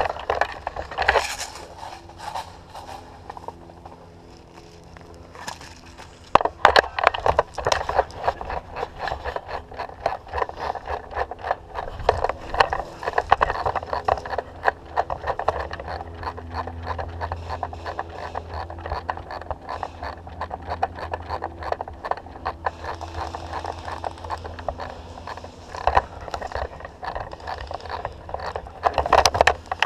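Footsteps crunching and scraping through dry brush and leaves close to the microphone, with a dense, irregular run of crunches from about six seconds in over a low rumble.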